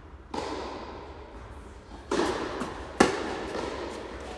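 Tennis ball being struck during play: a few sharp knocks, with the loudest, crispest racquet hit about three seconds in.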